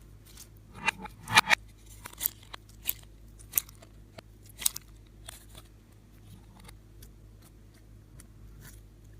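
Scissors snipping: a quick run of about ten short, crisp snips and crackles over the first five seconds, the loudest about a second and a half in, then only faint handling noise.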